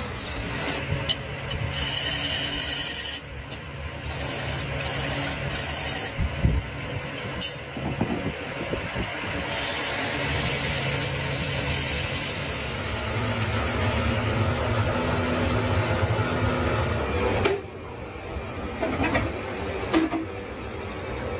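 Woodworking tool noise: tools rasping and rubbing on wood, in a dense noisy mix with short clicks. The sound changes abruptly twice, where separate shots are cut together.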